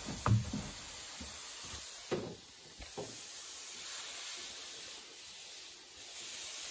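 Faint steady hiss with a few light knocks in the first three seconds.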